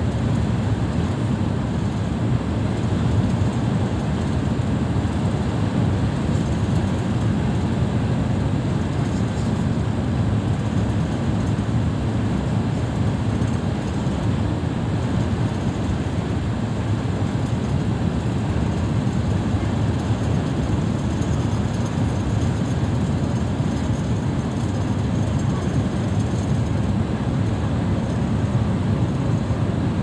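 Steady low rumble of road and engine noise inside a vehicle cruising at motorway speed.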